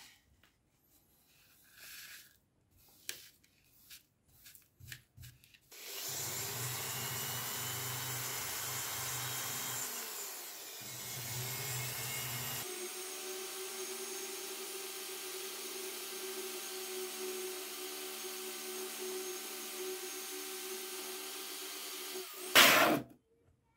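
A few faint scrapes and taps of a brush and plastic dustpan on a wooden tabletop. From about six seconds, an Einhell electric drill runs with a white abrasive stone bit grinding rust off an old axe head, with a short break near ten seconds, then goes on in a steadier tone. Near the end there is a brief loud burst, then the sound stops.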